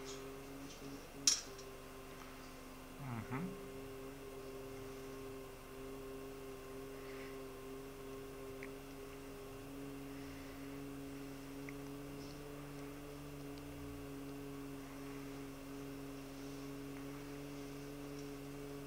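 A steady hum of a few sustained low tones, with a sharp click about a second in and a brief low swoop about three seconds in.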